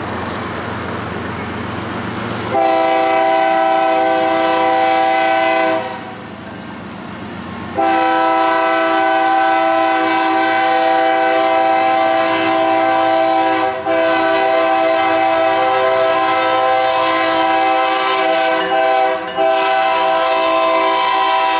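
Multi-note air horn of Ferromex GE ES44AC locomotive 4672, a horn taken from a series-45 locomotive. It blows a blast of about three seconds starting about 2.5 s in, then a long blast from about 8 s on, broken twice by brief dips. Underneath is the rumble of the passing diesel freight train.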